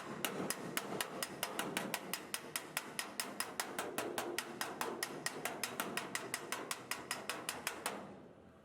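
Hammer striking sheet metal in a steady run of about five or six blows a second, stopping near the end, as in shaping body panel steel.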